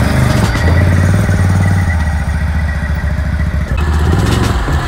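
Petrol pocket bike (mini moto) engine running steadily, a low rapid putter.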